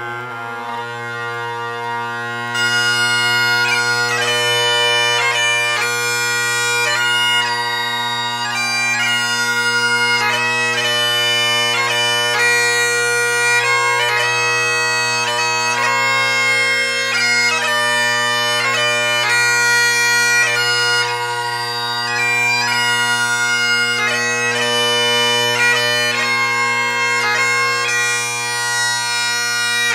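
Bagpipe music: steady drones held under a quick-moving chanter melody.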